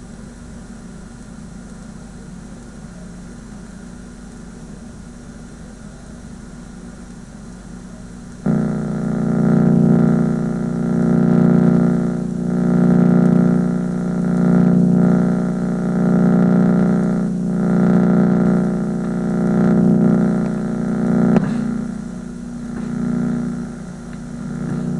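Buzzing from a VCR playing the blank end of a VHS tape, heard through the TV's speaker. A lower steady buzz with hiss gives way suddenly, about 8 seconds in, to a much louder buzz that swells and fades every couple of seconds. There is a sharp click about 21 seconds in, after which the buzz is softer.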